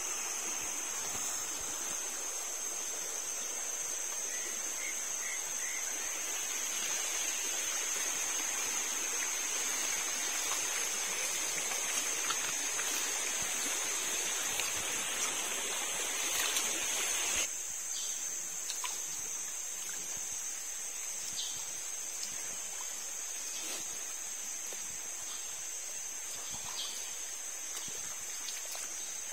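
Shallow stream running over stones: a steady rushing of water that drops suddenly to a quieter trickle about two-thirds of the way through, with a few faint clicks after that. A steady high-pitched tone runs over it throughout.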